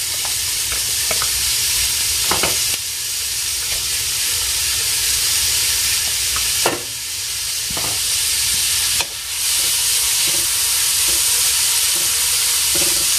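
Chopped onion and bell peppers sizzling steadily in hot oil in a metal pan, with a few short sharp clicks.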